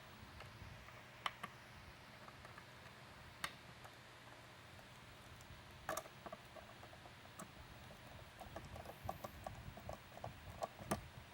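Faint clicks and taps of small hardware being handled and fitted to a plastic light housing, with a few separate clicks early and a quick run of small ticks in the last few seconds, like a screw being driven in.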